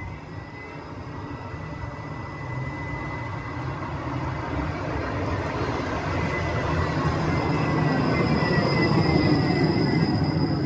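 Škoda 26T low-floor electric tram approaching and pulling into a stop, its running noise growing steadily louder. A thin high whine runs throughout and slides down in pitch as the tram slows.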